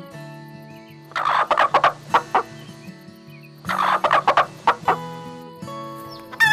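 Domestic poultry calling in two short, rapid rattling bursts, about a second in and again near the middle, over background music with held notes.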